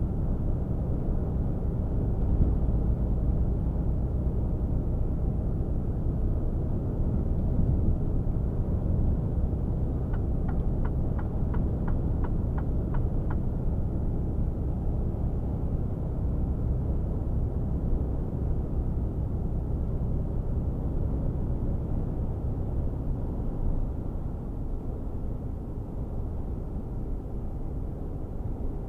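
Mercedes-Benz Actros 1848 tractor's inline-six diesel cruising at highway speed, heard inside the cab as a steady low drone of engine hum and road noise. A run of light ticks, about three a second, lasts a few seconds around the middle.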